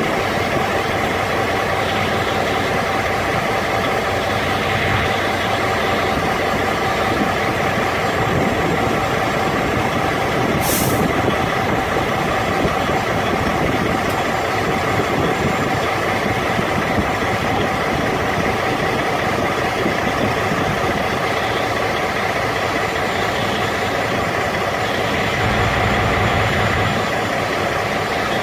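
Carrier Transicold trailer refrigeration unit running steadily through its pretrip self-test, in the warm-up stage. A brief high hiss comes about eleven seconds in.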